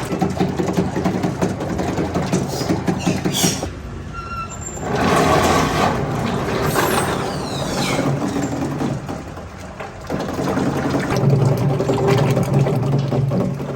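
Factory machinery running with a dense clatter and a steady low hum. It drops off briefly about four seconds in, then a hissing stretch follows before the clattering returns.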